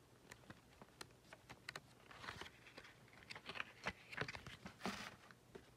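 Faint handling of a small paper booklet as its pages are leafed through by hand: light paper ticks and rustles, with short page-turn rustles about two and five seconds in.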